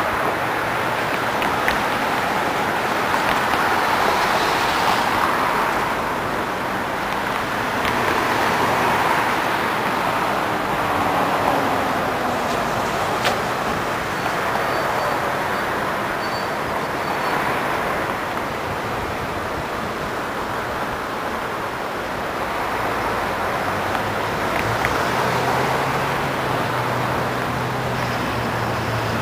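Road traffic crossing a bridge, the tyre and engine noise of passing cars swelling and fading every few seconds over a steady rush of river water spilling across a low dam. A low engine hum comes in near the end.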